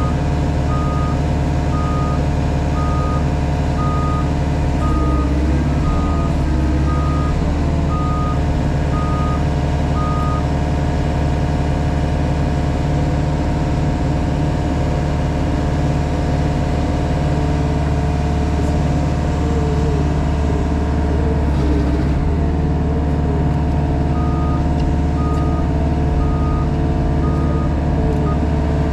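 JCB Pothole Pro's engine running steadily, heard from inside the cab. A reversing alarm beeps at an even pace through the first ten seconds and again near the end.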